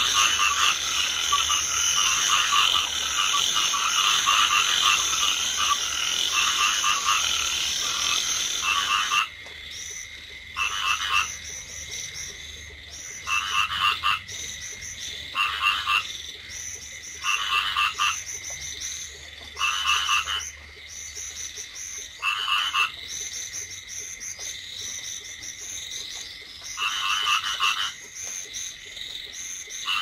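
Rice field frogs (Chinese edible frogs) croaking in pulsed calls. For about nine seconds a dense, overlapping chorus is heard. Then it cuts abruptly to single croaks coming one at a time about every two seconds, over a faint steady high hum.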